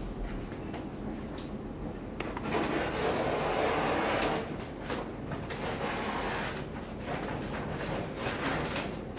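Large vinyl sticker sheet and its backing rustling and crackling as it is smoothed and slid by hand over a plastic board, with a longer rubbing stretch about three seconds in.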